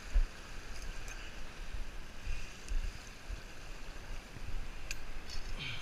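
Wind rumbling on the microphone over a faint wash of water, with a single knock just after the start and a few light clicks near the end.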